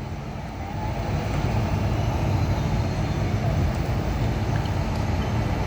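Man-made indoor waterfall: a steady, deep rushing noise of falling water.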